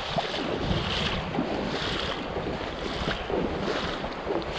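A person wading through a shallow, rocky river, legs pushing through the current and splashing with each stride, roughly once a second. Wind buffets the microphone.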